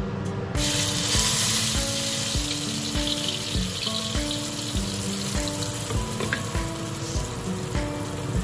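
Food frying in hot oil in a pan: a loud sizzle that starts abruptly about half a second in and keeps going steadily. Background music with a steady beat plays underneath.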